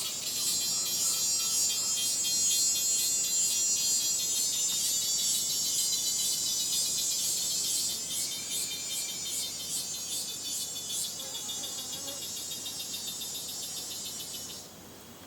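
Dense chorus of tropical insects: a high, shrill buzz with fast pulsing trills. It eases somewhat about halfway through and stops abruptly near the end.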